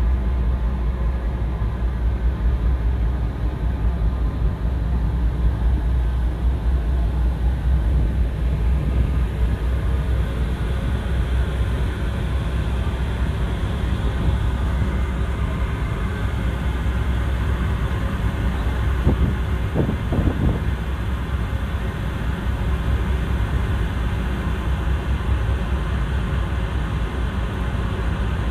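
Steady low rumble of a car ferry under way, heard from the open deck: the ship's engines and the churning propeller wash as she pulls away from the berth.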